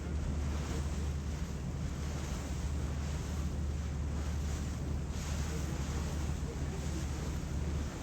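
Passenger ferry's engine drone, a steady low hum, under wind buffeting the microphone and the wash of water along the hull. The low hum drops away at the very end.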